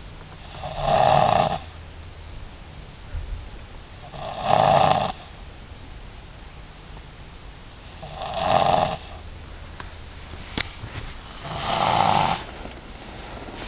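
A sleeper snoring in slow, regular breaths: four loud snores, each under a second long, about every three and a half seconds. There is a short click shortly before the last snore.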